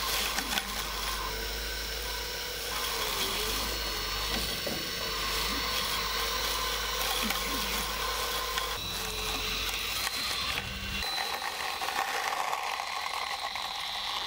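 Homemade robot lawn mower running on grass, its brushless blade motor spinning the cutting blades and its DC drive motors whining: a steady mechanical whir with a high whine. The low rumble in the sound drops away about eleven seconds in.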